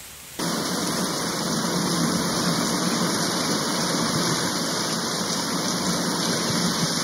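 Sea water washing around shoreline rocks and trickling down them, a steady rush of water that starts suddenly about half a second in.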